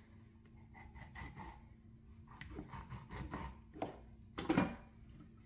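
Kitchen knife scoring whole tilapia on a wooden cutting board: light taps and scrapes, then a louder thud about four and a half seconds in as the fish is turned over and laid back down on the board.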